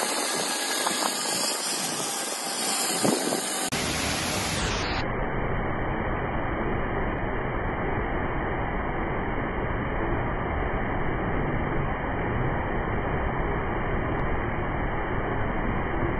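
Wind rushing over the microphone during a zip-line ride for the first few seconds, then a sudden change to the steady, even rush of a waterfall pouring into a rocky pool.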